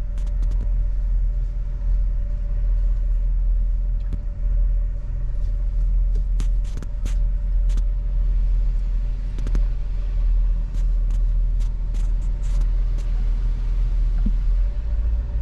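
Pickup truck's cabin noise while driving slowly: a steady low engine and road rumble with a thin constant hum and scattered light clicks.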